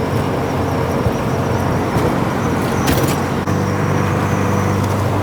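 Subaru Legacy driving at highway speed, heard from inside the cabin: a steady engine drone over tyre and road noise. The engine hum grows stronger about three and a half seconds in.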